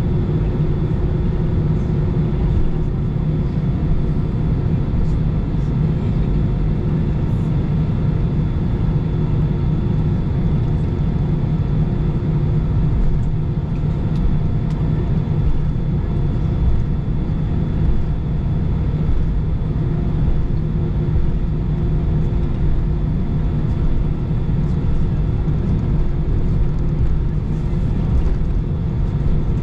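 Steady low rumble heard inside the cabin of an Airbus A320 taxiing, from its jet engines and airframe, with a few faint steady hums over it.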